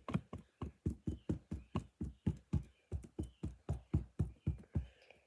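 Stiff putty slime being squeezed and kneaded by hand, giving a quick, even run of wet clicking pops, about four a second, that stops near the end.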